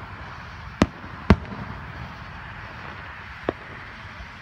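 Aerial firework shells bursting: two sharp bangs about half a second apart near the start, and a fainter one about three and a half seconds in, over a steady background hiss.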